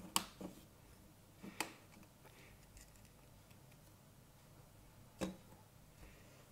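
Sharp plastic clicks and taps from a mini toy quadcopter and its remote controller being handled and switched: four separate clicks spread over a few seconds, the first the loudest.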